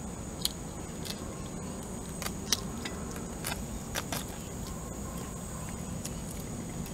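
Fingers picking and cracking the thick shell off a boiled duck egg on a plate: irregular small sharp cracks and clicks, about eight of them.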